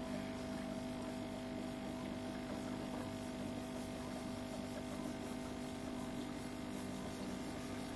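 Steady electrical hum with a couple of held tones, unchanging throughout.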